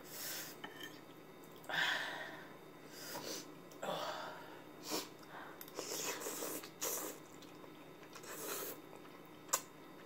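A person sniffling and breathing in short, noisy bursts while eating very spicy noodles, about ten of them with pauses between, and a small click near the end.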